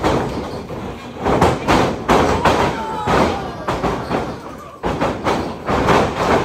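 A run of heavy thuds and slaps from wrestlers fighting in the ring, about one or two a second, some much louder than others.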